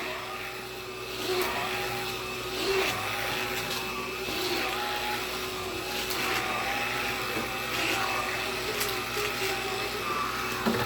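Black & Decker cordless lithium pet vacuum running with a steady motor whine, its loudness swelling slightly now and then as it is worked over the floor.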